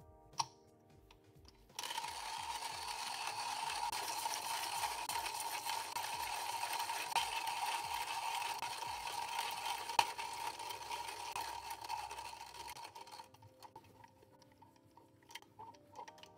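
A steady hiss that starts suddenly about two seconds in and fades away near the end, over faint background music.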